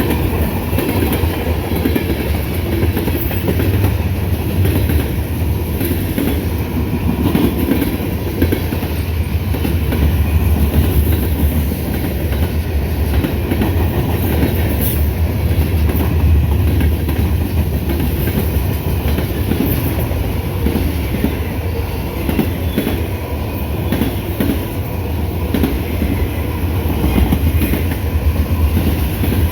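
Freight train's cars rolling past at speed: a steady, loud rumble of steel wheels on rail with a continuous clickety-clack of wheels over the track.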